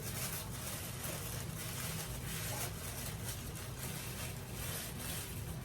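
Wrapping rustling and crinkling in irregular bursts as an item is unwrapped from a box, over a steady low hum.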